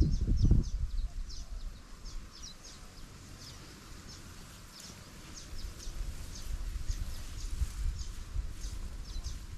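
A bird calling over and over in short, high chirps, about one or two a second, over a low rumble that is loudest in the first second and again from about six seconds in.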